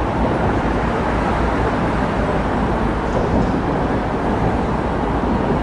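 Steady rumbling outdoor noise of a busy harbour front, with no distinct events standing out.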